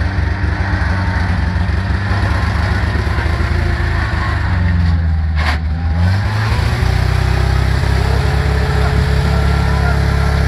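Off-road vehicle engine running, its low note dipping a little past halfway, where there is a single knock, then running steadily again.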